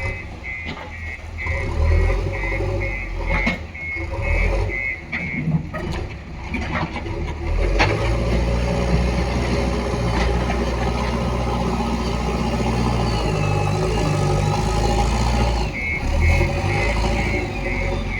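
JCB backhoe loader's diesel engine working under load, with its reversing alarm beeping rapidly at the start and again near the end, and a few metallic knocks from the machine in between.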